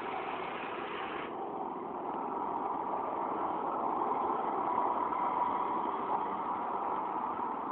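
Riding lawn mower's small engine running steadily as it is driven, getting a little louder midway and easing slightly near the end.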